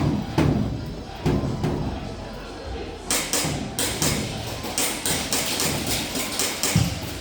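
Airsoft guns firing: a few dull thumps, then from about three seconds in a string of sharp, irregular snaps.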